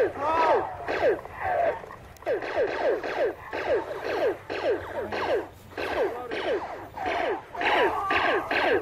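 Laser tag guns firing in repeated bursts of rapid electronic shot sounds, each shot a quick falling tone, about six shots a second at the fastest.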